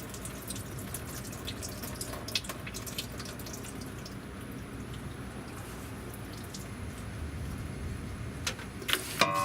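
Hot engine oil trickling and dripping into a drain pan: a steady light pour with scattered small drip clicks. A short ringing tone sounds near the end.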